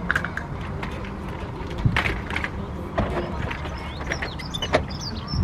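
Clicks and creaks from a pushchair's frame and parking brake as it is handled, a few sharp clicks spread over the seconds against a steady low rumble.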